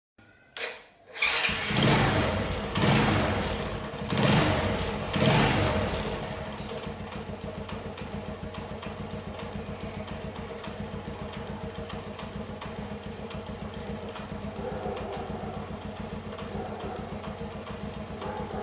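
Old Honda Wave-type (copy) single-cylinder motorcycle engine starting, revved four times, then settling into a steady idle with an even ticking. This is the engine noise that is still there after new rocker arms and a tappet adjustment.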